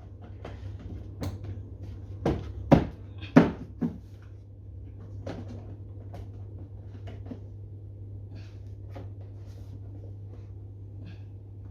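Plastic knocks and clicks as parts of a pressure washer's plastic housing are handled and pushed into place: about five sharp knocks in the first four seconds, then lighter scattered taps, over a steady low hum.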